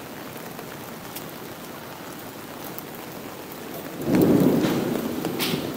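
Steady rain falling, with a rumble of thunder that comes in suddenly about four seconds in and slowly fades.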